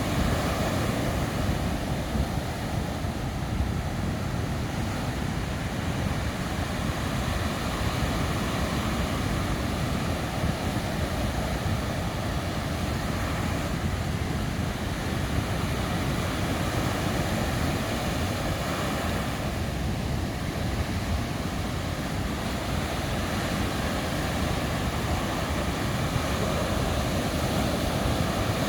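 Sea waves breaking and washing on a sandy beach: a continuous surf wash with a heavy low rumble and no distinct single breakers standing out.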